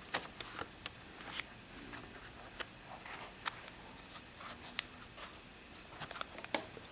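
Light, scattered scratching strokes and small clicks and taps from hand work on a bicycle saddle, with the sharpest click just under five seconds in.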